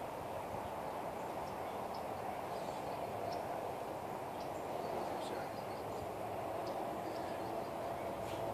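Steady background hum with faint, brief high chirps scattered through it.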